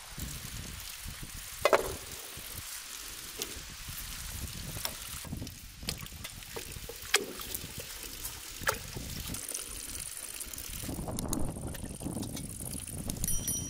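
Short splashes and plops a second or more apart as potatoes and other vegetables are dropped into a basin of water, over a low steady rumble.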